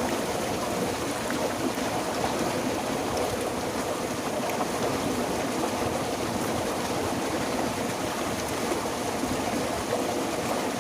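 Steady rush of flowing water with no pauses or separate splashes.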